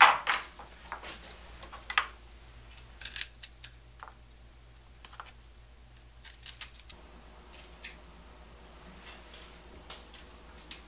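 A small kitchen knife trimming the stem ends of Brussels sprouts and picking off their outer leaves: irregular crisp snips and clicks, with the odd tap on the cutting board.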